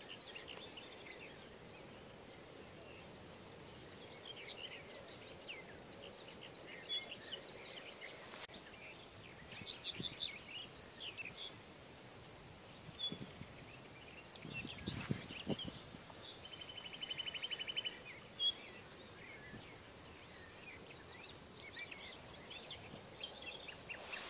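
Small birds chirping and twittering in short, scattered phrases, with a quick buzzy trill about two-thirds of the way through.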